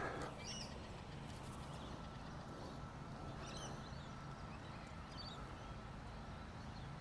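Faint birds chirping now and then over a steady low outdoor background rumble.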